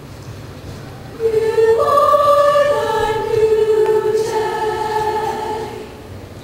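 Women's show choir singing in harmony: after about a second of low hum the voices come in on long held chords, which fade near the end.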